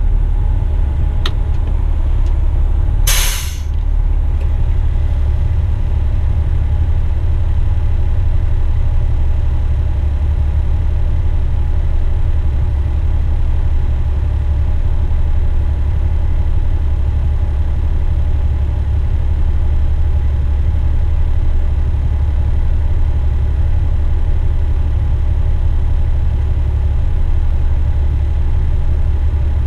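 Western Star truck's diesel engine running with a low, steady drone heard from inside the cab. About three seconds in, one short sharp hiss of air from the truck's air brakes.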